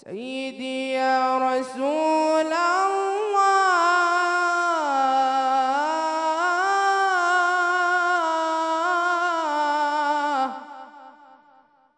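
A young man's voice chanting an Islamic ibtihal (devotional supplication) with no accompaniment: one long melismatic phrase whose pitch winds up and down through ornaments. It fades out about ten and a half seconds in.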